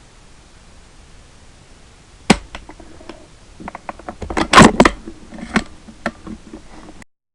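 Two loud suppressed rifle shots from a 6.8 SPC II, about two seconds apart, with clicks and rattles of the rifle being handled between and after them; the second is longer and more cluttered than the first.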